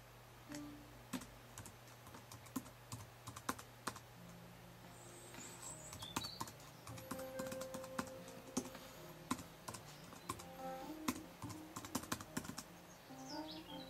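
Computer keyboard keys clicking at an uneven pace, with short pauses between runs of keystrokes, as a password is typed in.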